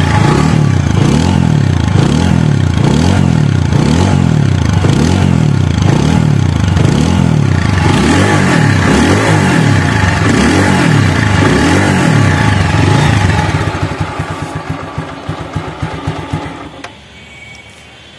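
TVS Apache RTR 4V's single-cylinder engine running with the throttle blipped over and over, revs rising and falling about once a second. Near the end it settles to an even idle and is switched off. The engine sound is smooth, in keeping with a young, little-ridden bike.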